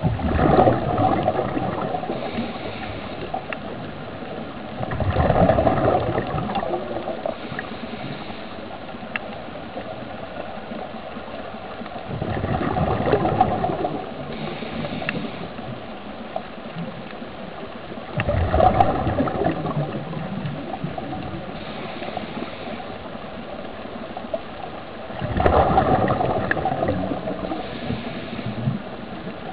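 Air bubbling and gurgling underwater from helmet-diving gear, a steady gurgle with five louder gushes of bubbles spaced about six to seven seconds apart.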